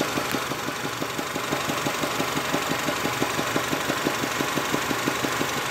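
Honda Civic's four-cylinder engine idling in park with a rapid, even knock, about eight a second: rod knock from a bad connecting rod.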